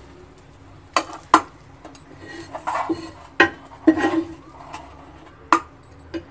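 Steel spatula scraping and knocking on a flat tawa griddle, with about six sharp metal clacks spread through, the loudest near the start and in the middle.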